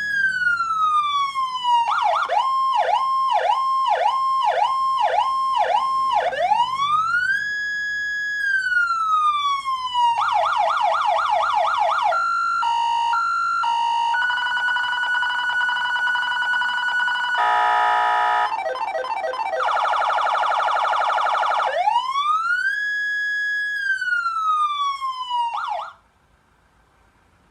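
Electronic emergency-vehicle siren cycling through its tones: a slow rising-and-falling wail, a fast repeated yelp, a two-note hi-lo, a steady held tone and rapid warbles, then a final wail that cuts off suddenly near the end.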